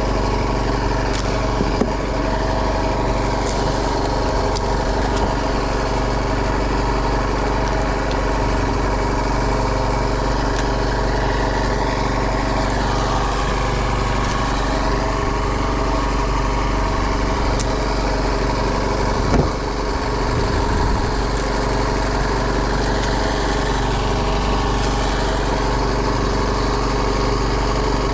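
Fishing boat's engine running steadily at constant speed, with a single knock about two-thirds of the way through.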